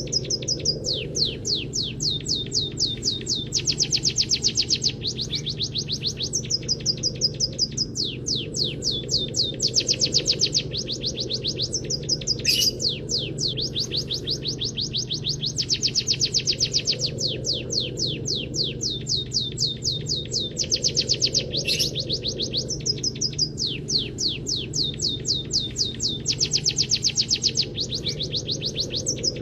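Caged munia (peking or emprit kaji) singing a canary-style song: fast, high trills of sharp down-sweeping notes in phrases of a few seconds, repeated over and over. A steady low hum runs beneath.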